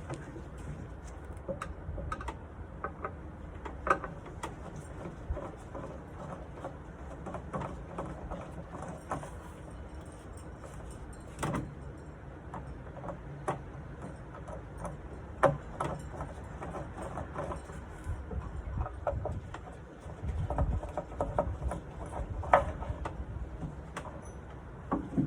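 Scattered light clicks, clinks and small knocks of metal hardware being handled as drawer handles and their screws are taken off a nightstand, over a low steady background hum.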